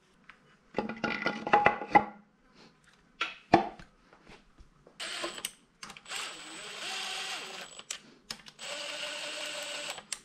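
Metal parts clinking and knocking, then a handheld power driver running in three steady bursts of one to two seconds each with a high whine, driving in the bolts of a 2JZ engine's oil pump.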